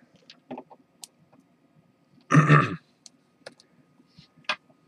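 Scattered small clicks and taps of plastic wire connectors and a small battery being handled and set down on a wooden table. One louder sound about half a second long comes a little over two seconds in.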